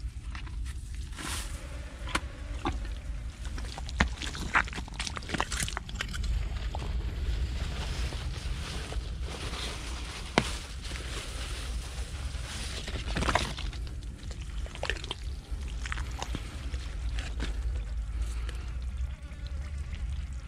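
Splashing and sloshing in shallow muddy water as hands move among stranded snakehead fish, with irregular sharp splashes and wet squelches, the loudest about four, ten and thirteen seconds in.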